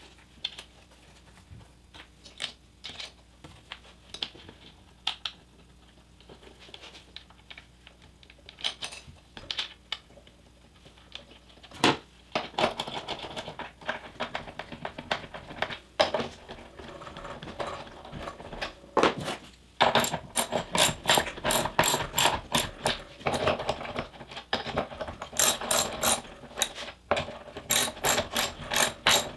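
Small metal hardware being handled, with sparse clinks as washers and nuts are picked up and set on bolts. Then, from about two-thirds of the way in, a hand ratchet wrench clicks quickly in short runs as the nuts holding the aluminium rail are tightened.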